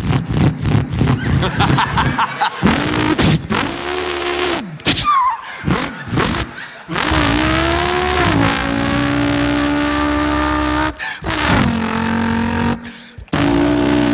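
A man imitating a V8 Holden Torana with his voice: quick choppy revs at first, then a rising rev about five seconds in and long held engine notes, each cut off sharply as if for a gear change, near the end.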